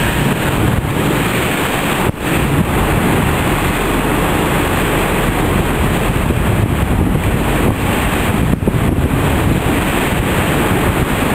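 Wind buffeting the microphone over the rush of churning sea water in the wash of a boat running alongside a ship's hull.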